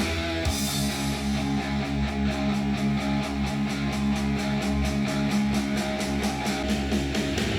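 Guitar-led music track played back through a small studio monitor and picked up by room microphones, with held notes under a quick, even beat.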